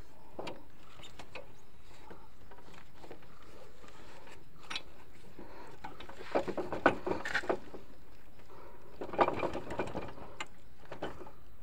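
Knocking and rattling from a Honda CB Unicorn's rear wheel as it is shaken and worked by hand to lock it into position on its hub, in two bursts about six and nine seconds in.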